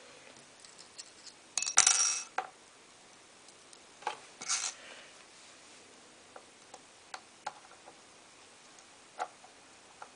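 Small metallic clicks and clatter from an Allen key and screws being worked into a metal watch-strap case, with a louder clatter about two seconds in and another about four seconds in, then light scattered ticks.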